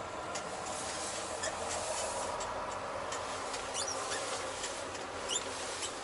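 Steady hiss of cab noise inside a Volvo VNL860 semi-truck rolling slowly, with small high squeaks and ticks scattered through it.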